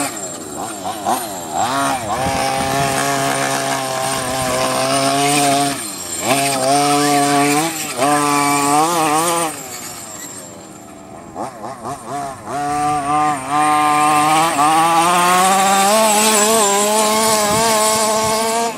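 The 29cc two-stroke gas engine of a 1/5-scale Nutech Mega Beetle RC buggy, fitted with a Jetpro tuned pipe, revving up and easing off in bursts on high-speed passes. It is fainter through the middle, then holds a long high rev near the end, its pitch rising slowly.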